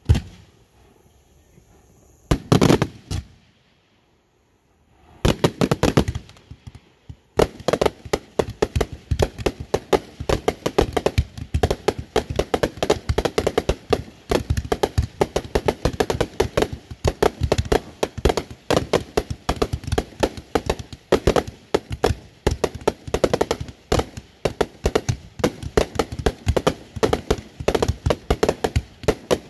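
Fireworks going off: a few separate bangs, then a long run of rapid, overlapping pops and cracks.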